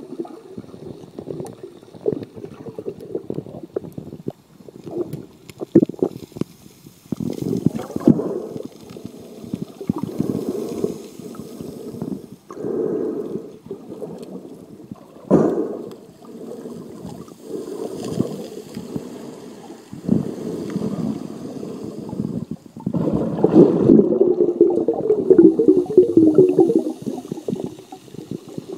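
Muffled water sloshing and gurgling around an iPhone in a waterproof case, recorded while it moves underwater. The sound comes in irregular surges, with one sharper knock about fifteen seconds in and a louder stretch near the end.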